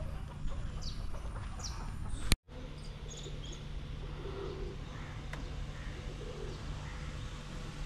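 Birds calling in the open: short high falling chirps and a few low clucking calls over a faint steady hum. Just over two seconds in, a sharp click and a brief dropout to silence break the sound.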